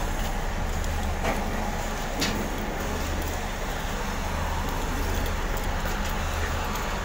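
Hand pallet truck loaded with a steel drum rolling over a concrete floor, its wheels giving a steady rumble over a constant low hum, with two brief knocks about one and two seconds in.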